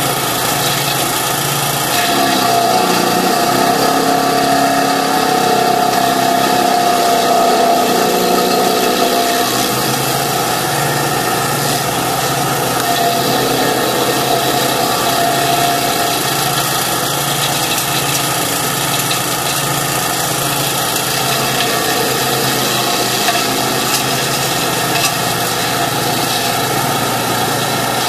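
Kanga mini loader engine running steadily with its stump grinder attachment.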